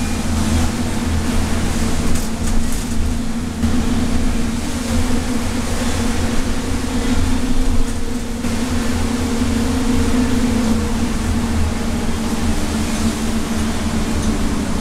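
Interior of a 2012 Nova LFS city bus under way: the engine and drivetrain running steadily with a low rumble and a steady hum, over noise from the tyres on the wet road.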